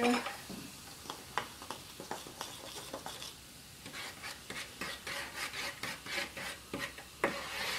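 Plastic cups being handled and scraped on a wooden tabletop: a string of light clicks and scrapes, busiest in the second half.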